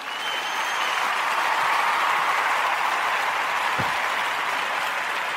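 Audience applause, swelling over the first second and then holding steady.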